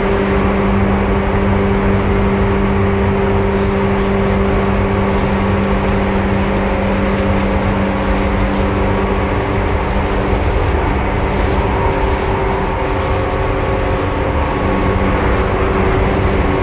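Seibu 2000 series field-chopper electric train running, heard from inside motor car MoHa 2245: a steady rumble of wheels on rail with a steady motor hum. The hum fades after the middle and returns near the end, and rattling clatter joins about three seconds in.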